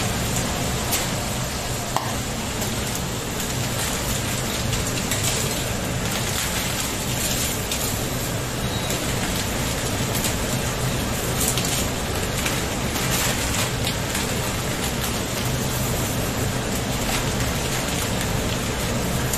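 Food sizzling steadily in a pan on an induction hob, with occasional clicks and rustles as dry fideuá noodles are poured in from a plastic bag. A kitchen extractor hood fan hums underneath.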